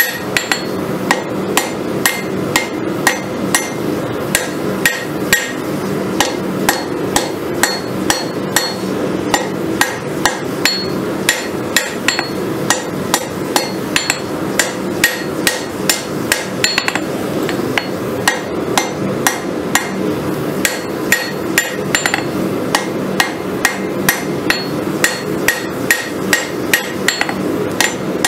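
Ball-peen hammer blows on red-hot farrier's-rasp steel against an anvil, a steady rhythm of about two strikes a second, as the blank is drawn out into a kukri blade. A steady low rushing noise runs underneath the blows.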